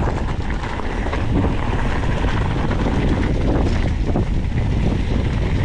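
Wind buffeting the microphone of a camera carried by a mountain biker riding a trail, over a steady low rumble from the moving bike, with a few faint ticks and rattles.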